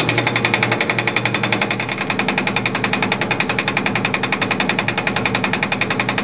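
Fly cutter on a South Bend 10K lathe taking a pass across an aluminium bar: an even, fast rattle of the single cutter striking the metal about ten times a second, over a steady low hum.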